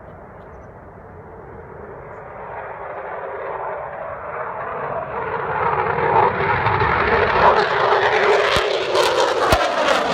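Military fighter jet approaching, its engine noise growing steadily louder and spreading higher in pitch. A few sharp clicks come near the end.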